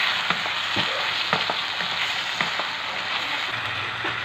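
Whole shrimp frying in garlic butter sauce in a pan, sizzling steadily while they are turned and stirred, with scattered light clicks and knocks of shrimp and utensil against the pan.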